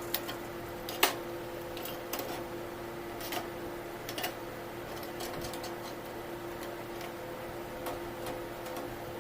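Scattered light clicks and taps, the sharpest about a second in, over a steady hum.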